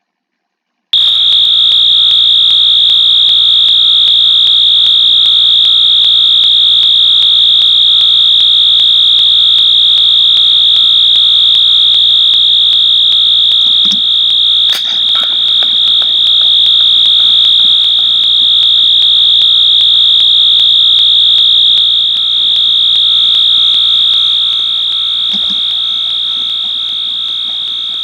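Fire alarm sounder set off from a pull station. It comes on abruptly about a second in and holds one loud, continuous, high-pitched tone with no pulsing.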